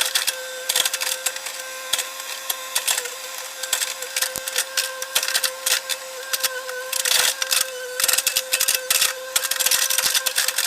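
Hitachi excavator at work, with a steady high whine under dense, irregular clattering and rattling.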